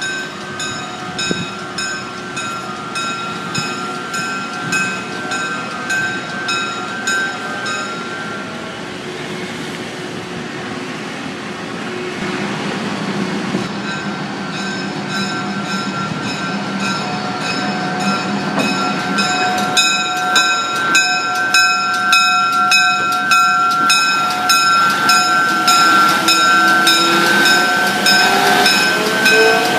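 East Erie Commercial's GE center-cab diesel switcher locomotive approaching and passing close by, its engine growing louder, while a bell rings steadily about three times a second. The bell stops for a few seconds in the middle, and the engine note rises near the end.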